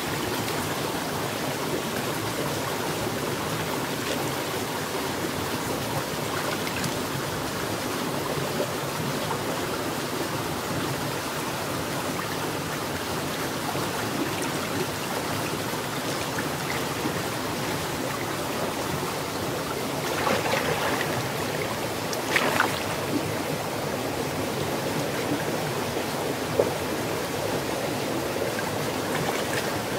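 Steady rush of a shallow stream running over rocks, with a few brief splashes from hands in the water about two-thirds of the way through.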